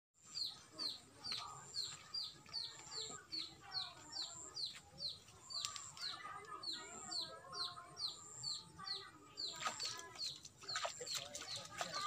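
Outdoor rural ambience: a bird repeats a short, high, falling chirp about two to three times a second, over chickens clucking and a thin high insect-like buzz that comes and goes. A few sharp clicks sound near the end.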